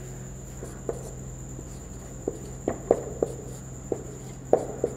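Dry-erase marker writing on a whiteboard: a string of short, irregularly spaced squeaks and taps as the letters are drawn, over a steady low hum.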